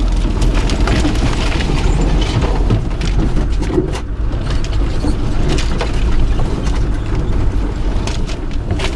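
4x4 vehicle driving slowly over a rough, overgrown off-road track: a steady loud low rumble, with many short scrapes and knocks as bushes and branches brush and slap the bodywork.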